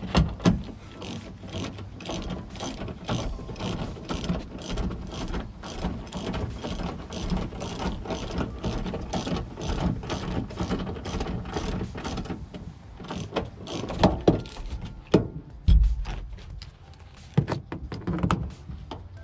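Socket ratchet clicking in quick, repeated strokes as a bolt is unscrewed. A few louder knocks come in the last few seconds.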